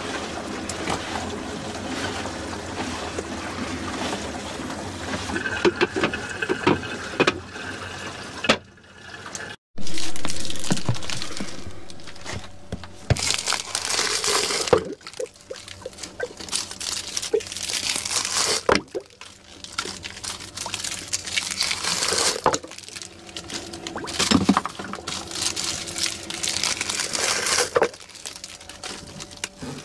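Water pouring and splashing into a plastic bucket in repeated rushes, over the steady hum of the pool's filter pump.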